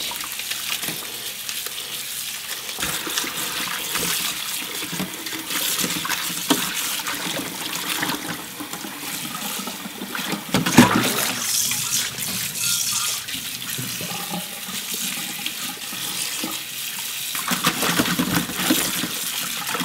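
Kitchen tap running into a stainless steel bowl of spinach in a sink while hands swish and rinse the leaves, the water splashing unevenly. One louder splash comes about halfway through.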